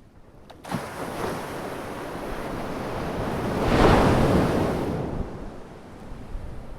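Ocean wave breaking and washing in: a rush of surf that starts about a second in, swells to its loudest near the middle and then recedes.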